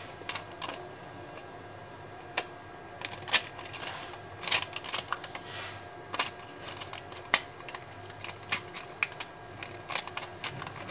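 Silver label being peeled off a Samsung Galaxy Note 4 battery: irregular crackles and clicks of the stiff foil-like film bending and its adhesive letting go, with a few short rustles.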